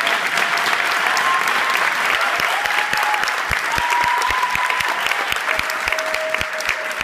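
Audience applauding steadily, with a few held whoops of cheering over the clapping and a run of short low thumps in the middle.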